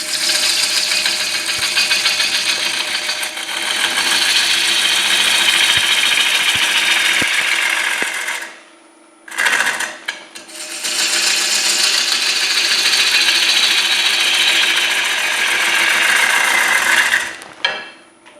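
A bowl gouge cuts into a spinning, soaking-wet hard maple bowl blank on a wood lathe, making a loud, dense shaving noise. There are two long cuts, broken by a short touch of the tool about halfway. A steady hum and high whine from the lathe's VFD motor go on through the pauses.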